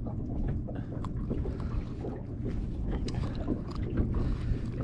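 Steady low rumble of wind on the microphone over open water around a small boat, with a few faint clicks from handling.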